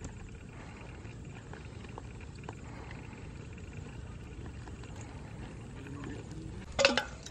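Steady low outdoor rumble with a few faint knocks, and one short loud sound near the end.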